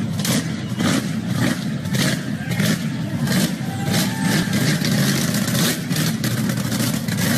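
An off-road vehicle's engine revving hard, with a sharp crack recurring every half second or so.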